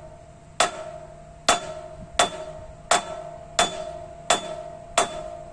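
A large Craftsman flathead screwdriver used as a hammer, tapping against the steel of a utility trailer: seven light, evenly paced metallic taps about two-thirds of a second apart, each ringing briefly.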